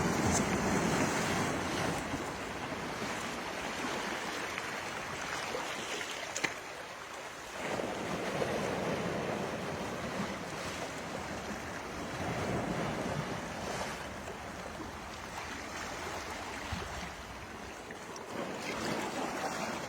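Incoming Bay of Fundy tide washing over a rocky shore: surf rushing in slow surges that swell and fade every few seconds.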